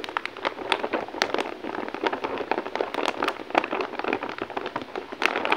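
Clear polythene wrapping crinkling as the kit's packaging is handled and closed up: a dense, irregular run of crackles.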